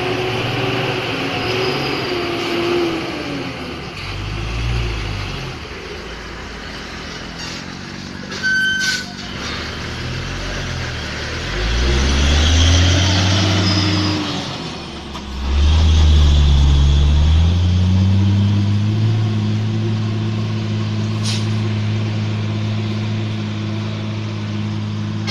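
Heavy diesel truck engines labouring slowly round a steep hairpin, their pitch rising and falling with the revs, with a short sharp sound about eight seconds in. The engine is loudest as a truck passes close by, then its pitch climbs and settles into a steady drone for the last few seconds.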